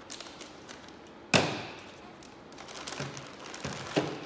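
Plastic parts bags rustling and crinkling as they are snipped open with scissors and unpacked, with small snips early on, one sharp clack about a second and a half in that is the loudest sound, and a lighter click near the end.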